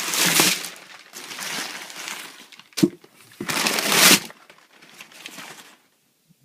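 Shipping packaging crinkling and rustling in bursts as a longboard deck is pulled out of its box, with one sharp knock about three seconds in; it goes quieter near the end.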